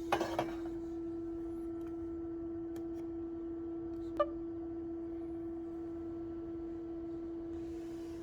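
Coffee maker machine running with a steady, even-pitched hum, with a few clicks at the start and a single click about four seconds in.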